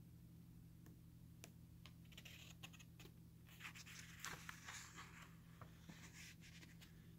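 Faint rustle of a paper book page being turned, about halfway through, with a few small clicks over a low steady hum.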